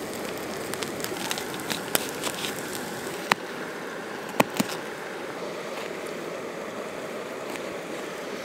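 Knife slicing a red onion on a plastic cutting board, with three sharp taps of the blade on the board between about three and five seconds in. Small crinkles of a beeswax wrap come in the first couple of seconds. Under it all is the steady hiss of a gas canister camp stove heating a pan of corn and beans.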